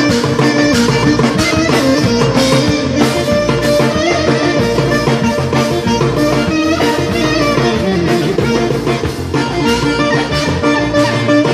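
Live Greek folk ensemble of clarinet, bouzouki and percussion playing a tune together over a steady beat.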